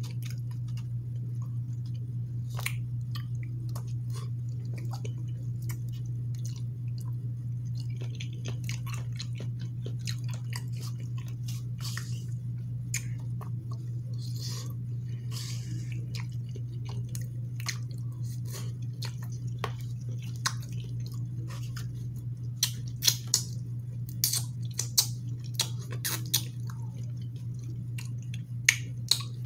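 Close-up chewing of a mouthful of rice and red beans, with many soft, wet mouth clicks that get sharper and louder in the last several seconds. A steady low hum runs underneath.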